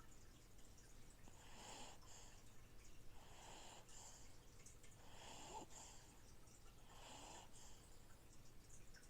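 Faint snoring of a sleeper: four soft breaths in a row, one about every two seconds, each sliding down in pitch. Beneath them runs the faint steady trickle and low hum of an aquarium filter.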